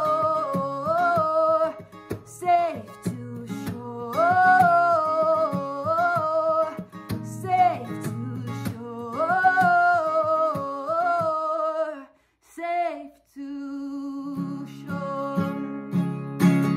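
A woman singing to her own acoustic guitar accompaniment. About three quarters of the way through her voice stops and the guitar plays on alone.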